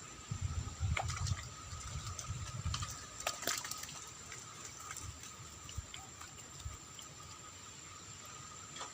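Water splashing and sloshing in uneven surges for the first few seconds, with a few sharp clicks, over a steady high insect drone.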